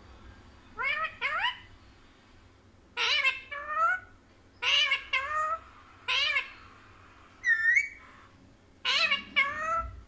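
Rose-ringed parakeet calling in short, arched, nasal notes, mostly in pairs with pauses between, somewhat meow-like, with one higher whistled note near the end.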